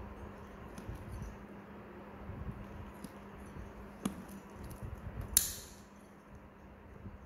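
Spring-loaded nail nippers cutting a thick, fungus-infected toenail: faint crunching clicks, then a sharp click about four seconds in and a louder snap about five and a half seconds in as a piece of nail breaks off. A faint steady hum underneath.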